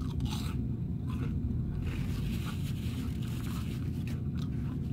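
Close-up eating sounds from a crispy fried fish sandwich: bites and crunchy chewing, with a scratchy rustle for about a second and a half midway, over a steady low rumble.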